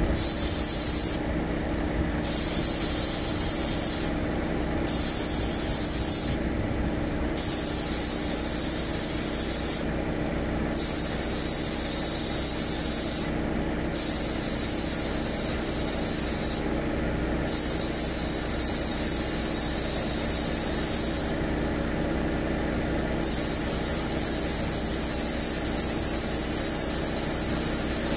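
Refrigerant hissing out of a Chevrolet Equinox's over-charged AC system through the charging hose's trigger valve, in about eight spurts of one to four seconds with short pauses between: the system is being bled down a little at a time. A steady engine hum runs underneath.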